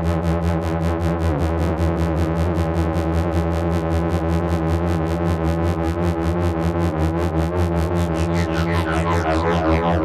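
Modular synthesizer drone from a self-oscillating Nyle filter at full resonance, fed through a phaser and delay: a steady low chord of tones with wavering, sweeping upper overtones and a fast even pulsing of about five beats a second. The bright top thins out near the end.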